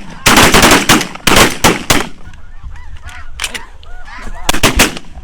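Rapid, overlapping shotgun blasts from several hunters firing at once, in two clusters during the first two seconds and another short burst near the end. Geese honk in between.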